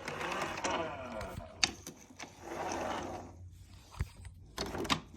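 Plastic carpet-cleaner parts being handled: two stretches of rustling and scraping, with sharp clicks and a few knocks near the end.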